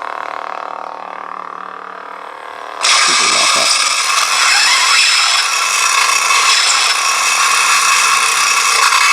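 Lightsaber hilt's CFX sound board humming steadily with an Obi-Wan sound font, then, about three seconds in, a sudden much louder harsh, noisy sustained effect cuts in and holds, of the kind a clash lockup produces.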